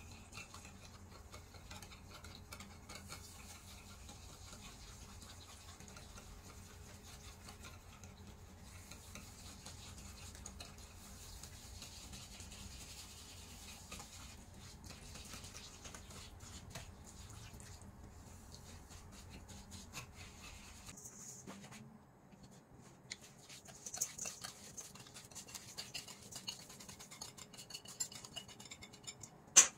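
Wire whisk stirring sugar into melted chocolate batter in a glass dish: a steady scratchy whisking. About two-thirds of the way through it gives way to scattered light clinks and taps, with one sharp knock near the end.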